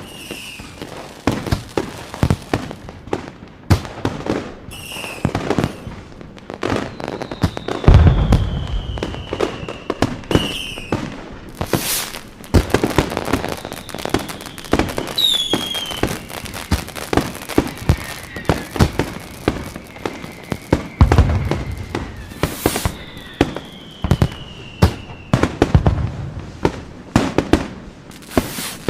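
Fireworks going off: dense rapid crackling and popping, with a few deep booms and several whistles that fall in pitch.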